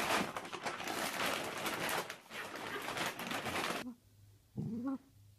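A plastic pet-food bag rustling and crinkling as a small dog digs its head into it. After a sudden drop to quiet, a dog gives one short whine near the end, rising in pitch.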